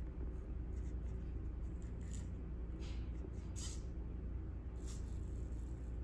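A servo robot arm drawing a whiteboard marker across a whiteboard in a few short scratchy strokes, the loudest about midway, over a steady low hum.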